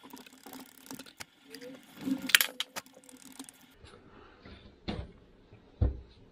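Hand screwdriver driving a screw into a plastic wall bracket: clicking and scraping, loudest about two seconds in, followed by two dull knocks near the end.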